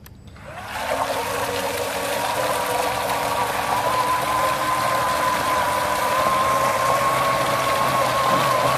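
A 3D-printed RC snow blower, run by its electric motor through a Traxxas-differential gearbox, spins up about half a second in and runs steadily with a whine, its impeller churning the water in the tub and throwing a jet from the chute that splashes down on the concrete.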